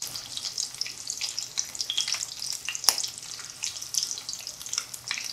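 Breaded chicken pieces shallow-frying in about a quarter inch of avocado oil in a cast-iron skillet, with steady sizzling and crackling. A single sharp click comes about three seconds in.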